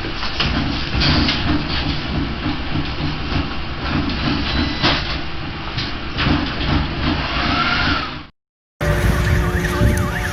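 Heavy rumbling and rattling of a room shaking in a magnitude-6.4 earthquake, with several sharp clattering knocks of objects falling. It cuts off about eight seconds in, and after a short gap a siren wails, its pitch sweeping quickly up and down.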